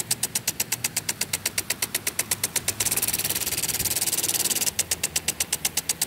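Rapid, even ticking, about ten ticks a second, over a low hum, with a steady hiss coming in around the middle.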